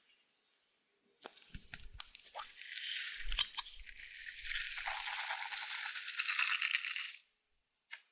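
Close-up handling of clear slime and makeup: a few sharp clicks, then a dense crackling, scratchy hiss that lasts about four seconds and stops suddenly.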